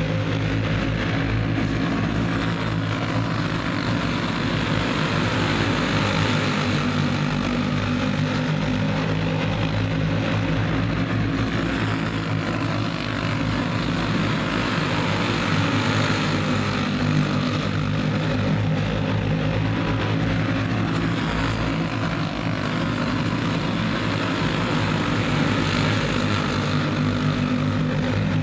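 A pack of Clone-class dirt oval racing karts running at race speed. Their small single-cylinder four-stroke engines blend into one steady multi-engine drone that swells a little a few times as the pack comes around.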